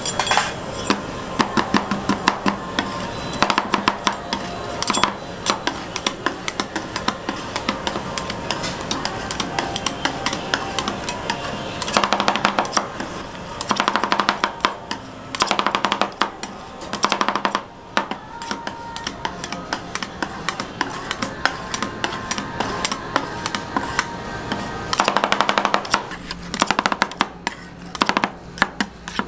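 Two metal spatulas chopping and tapping on a frozen steel rolled-ice-cream plate, working the cream mix as it freezes: flurries of fast clacks, the densest about halfway through and again near the end.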